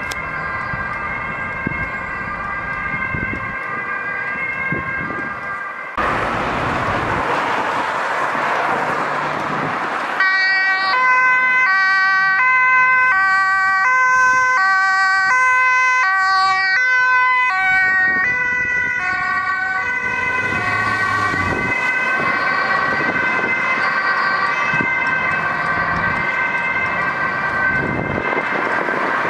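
Dutch ambulance two-tone siren alternating between a high and a low note, clearest in the middle. Road traffic noise runs underneath, with a stretch of rushing noise a few seconds in.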